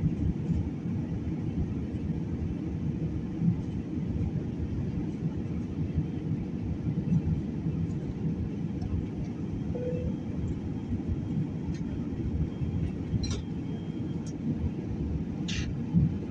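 Steady low rumble of an airliner's cabin in cruise flight: jet engine and airflow noise heard from a window seat, with a few faint clicks near the end.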